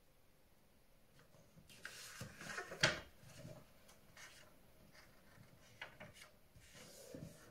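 Folded paper fanzine pages being handled and turned over on a wooden table: paper rustling and sliding, loudest with one sharp sound about three seconds in, then a few lighter rustles and taps.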